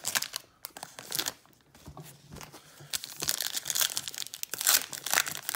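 Foil card-pack wrappers crinkling and tearing as baseball card packs are ripped open by hand, sparse at first and busier after about three seconds.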